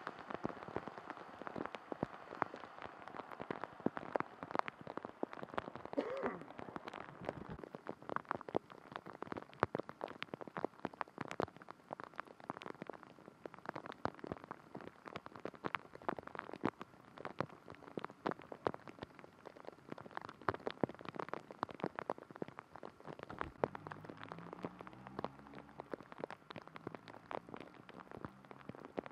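Steady rain falling, with many individual drops striking close by as sharp ticks.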